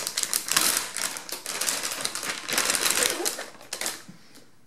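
Foil-laminated packaging pouch crinkling and crackling as hands tear it open and pull the binocular case out; the crackling dies away about four seconds in.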